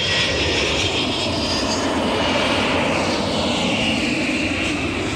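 Jet aircraft engine noise: a steady rush with a high whine that drifts down and back up in pitch.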